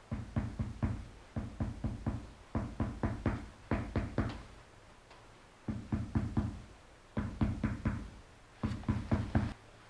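Bone-setter's hammer tapping rapidly on the body to adjust misaligned spots of the spine, in quick runs of about five or six taps, each run lasting about a second. There are short pauses between runs and a longer pause about halfway through.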